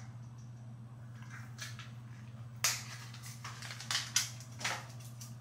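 A few short rustles of clothing being handled, as a corset top is adjusted on the body, over a steady low hum.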